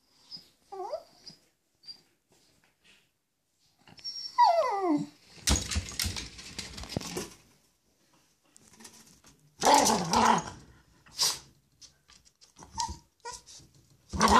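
Yorkshire terrier agitated at a bearded dragon behind glass: a few short falling whines, then rough growling barks, several times.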